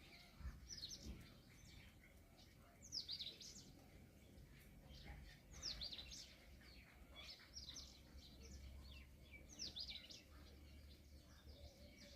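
Small birds chirping faintly: short bursts of quick, high, downward-sweeping chirps repeated about every two seconds, five times.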